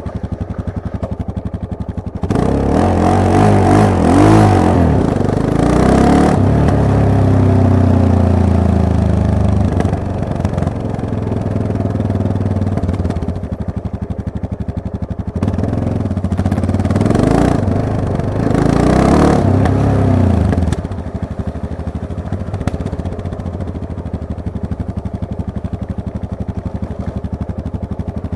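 Yamaha MT-03's parallel-twin engine accelerating hard twice, its pitch climbing through the revs each time, with falling revs as the throttle closes after the first pull and steady low running before and after.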